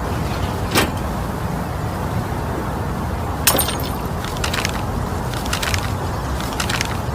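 A steady low rumble, with a sharp click about a second in, a louder clattering knock about three and a half seconds in, and a few lighter rattles after it.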